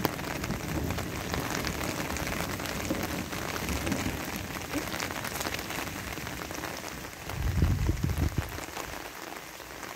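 Light rain falling on citrus trees and the ground, an even patter of many fine drop ticks. About seven and a half seconds in, a low rumble swells for about a second.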